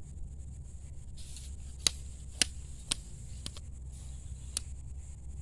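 A telescopic fishing pole being handled and taken in, its sections giving about half a dozen sharp clicks and knocks over a few seconds, over a steady low rumble and a steady high hiss.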